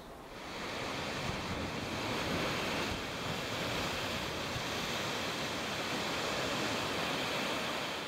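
Rushing white water, a steady roar of foaming water, fading in at the start and holding evenly.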